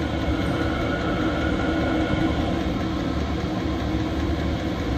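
Chinese 5 kW diesel air heater running steadily, its blower and burner making a continuous whirring roar, over a low engine rumble from the truck idling with its alternator charging.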